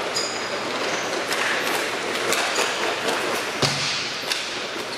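Inline hockey play on a sport-court floor in a large echoing hall: a steady rush of skate wheels with sharp knocks of sticks and puck, about five at irregular moments, the strongest a little after the middle.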